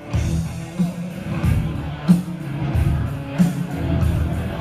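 Rock music with guitar over a steady, heavy beat.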